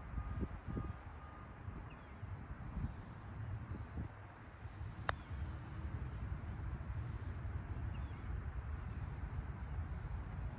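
Steady high-pitched chorus of insects such as crickets over a low rumble. A single sharp click about five seconds in is the putter striking the golf ball.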